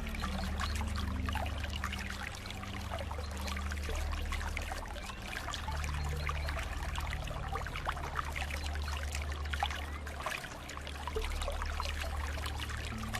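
Running water flowing and trickling steadily, full of small splashes, over a low rumble.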